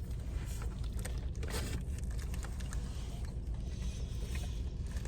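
Steady low rumble of a car's idling engine heard inside the cabin, with a few faint clicks and rustles.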